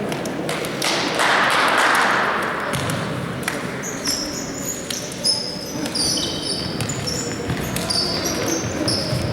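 Futsal being played on an indoor court: ball kicks and bounces, with short high squeaks, most likely players' shoes on the floor, from about halfway through, and some shouting in the hall.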